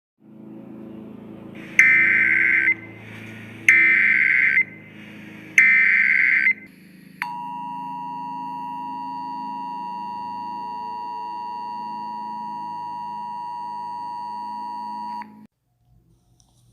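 Emergency Alert System tones: three short bursts of screechy SAME data header about two seconds apart, then the steady two-tone EAS attention signal held for about eight seconds before cutting off sharply. These tones mark the start of a new alert broadcast. A low hum runs underneath.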